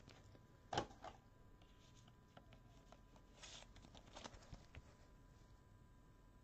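Near silence with faint handling of trading cards and a rigid plastic card holder by gloved hands: one sharp click about a second in, then a few soft rustles and light taps.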